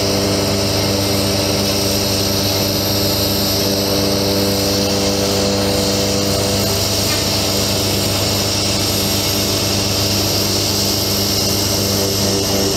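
Truck diesel engine running steadily to drive the hydraulic pump of a Palfinger PK32080 articulating crane while the boom is operated, a constant hum with a hiss above it.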